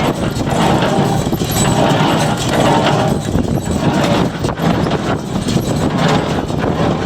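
John Deere 336 square baler running, driven by a tractor: a steady loud mechanical clatter with rapid, repeated knocks from the working mechanism, over the tractor's engine.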